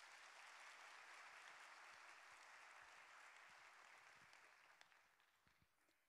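Faint audience applause, an even patter of many hands clapping that dies away over the last second or two.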